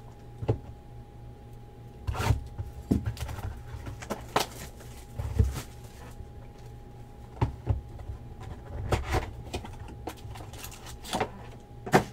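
Hands handling a cardboard box of trading-card packs and a foil card pack: scattered taps, knocks and rustles of cardboard and foil, a dozen or so short handling noises with a sharper knock near the end.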